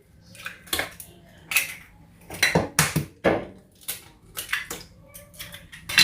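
Kitchen utensils clinking and knocking against a bowl while baking ingredients are handled: a string of irregular sharp strikes, about two a second.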